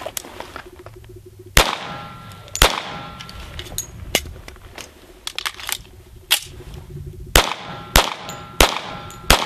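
Two pistol shots about a second apart, then several seconds of small clicks as the empty magazine is swapped for a fresh one. Four more shots follow in quick succession, a little over half a second apart.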